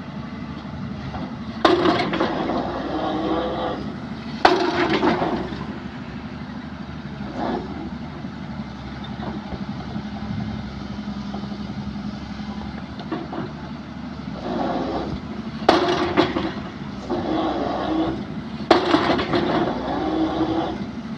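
Excavator drop hammer striking a pile: four heavy blows, two close together near the start and two more about three seconds apart later on, each ringing briefly, with the excavator's diesel engine running steadily between them.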